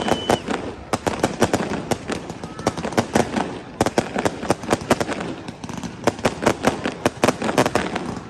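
Fireworks going off in rapid succession: many sharp bangs and crackles, several a second, with short thinner spells between volleys.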